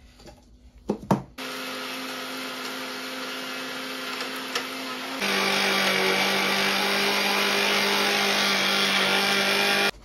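Electric mixer grinder (mixie) running, grinding roasted dried chillies and spices into curry powder: a steady motor hum with a whirring grind. About halfway through it gets louder and its hum drops lower, and it cuts off suddenly near the end. A couple of short clicks of the jar being handled come just before the motor starts.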